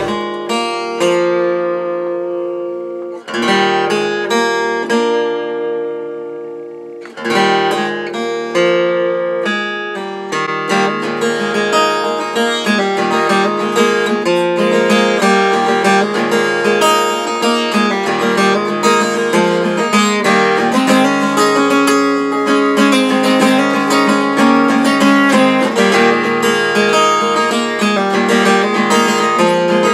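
Solo acoustic guitar. Three chords are struck and left to ring out over the first seven seconds, then a busy, continuous passage of picked and strummed notes runs on.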